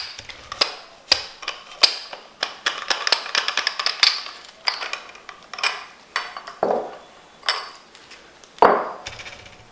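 Fork seal driver tapped repeatedly against a new fork seal in a KYB SSS fork tube, a series of sharp metallic clacks with a quick flurry of taps around the middle. The taps drive the seal fully home so the retaining clip can seat.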